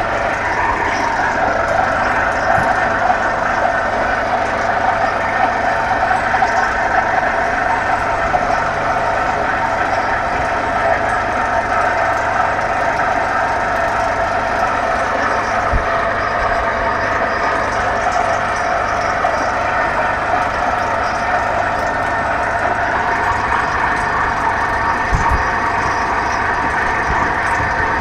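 Heavy diesel machinery of a sheet-piling rig, a crawler crane and its pile-driving power unit, running steadily with an unchanging engine drone. Two dull knocks come through a little past halfway and near the end.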